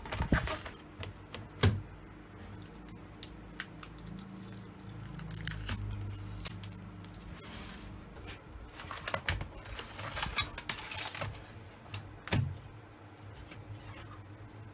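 Handling clatter from an opened LCD monitor being taken apart: scattered clicks and taps on its sheet-metal chassis and frame, with a few sharper knocks, two in the first two seconds and one about twelve seconds in.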